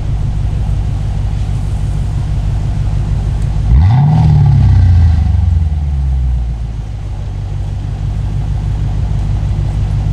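Lexus RC F's 5.0-litre V8 idling through its quad exhaust, revved once about four seconds in: the pitch jumps up sharply, then falls back to idle over about two seconds.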